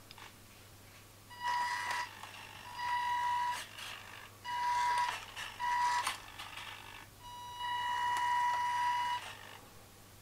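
Electric drive motor and gearbox of a radio-controlled pickup truck running in five short bursts, each a steady high-pitched whine over gear noise. The last burst is the longest.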